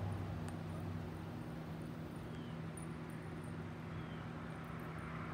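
Steady low hum with even background noise, like a distant motor or machine running.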